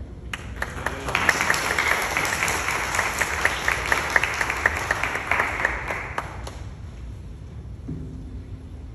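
Church congregation applauding: many hands clapping start just after the opening, hold for about six seconds and then die away.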